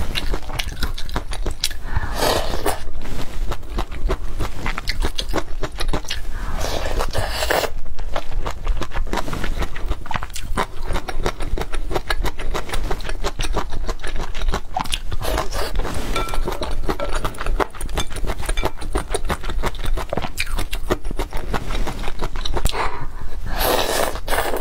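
Close-miked eating of chilli-oil-soaked tofu skin and sour bamboo shoots: chewing and wet mouth clicks in quick succession. There are a few louder slurps, about 2 s in, about 7 s in and near the end. A steady low hum runs beneath.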